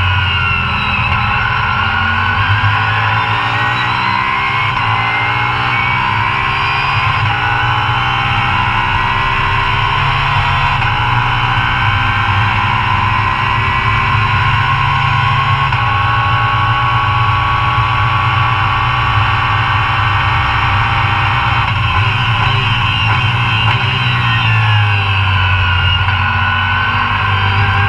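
Audi R8 LMS GT3's V10 racing engine heard from inside the cockpit at full race pace, rising in pitch through the gears with several upshifts in the first half. Toward the end the pitch drops through downshifts.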